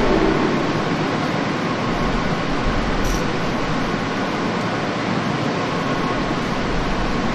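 Steady machinery noise of a car assembly plant: an even, loud rumble and hiss with a faint steady hum, and a brief high hiss about three seconds in.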